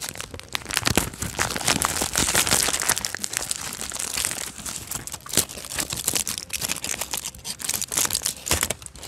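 Plastic chocolate bar wrapper crinkling and rustling continuously as it is unwrapped by hand, with a few louder sharp crackles.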